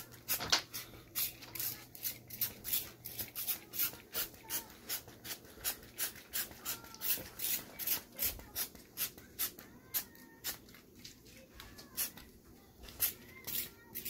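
Hand trigger spray bottle spritzing rubbing alcohol onto a car's painted hood, short hissy sprays repeated about two to three times a second, more spaced out near the end.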